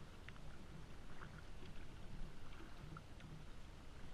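Kayak paddle lightly splashing and dripping in river water, heard as small scattered splashes over a steady low rumble.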